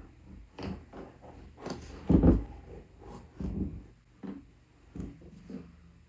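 Handling noises from a leather boot being turned over and set down: a string of irregular knocks and thuds with rustling between them, the loudest about two seconds in.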